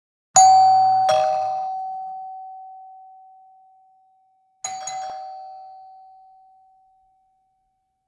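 Doorbell chime ringing a ding-dong, a higher note then a lower one, each ringing out and slowly fading. A second, quieter chime sounds about four and a half seconds in and dies away.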